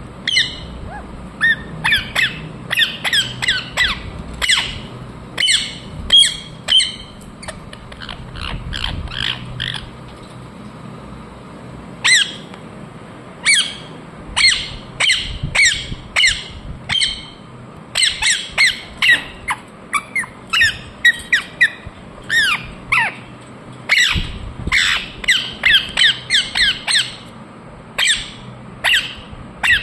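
Ringneck parrot giving runs of short, sharp, downward-sweeping squawks, several a second, with a quieter stretch of a few seconds before the calls pick up again.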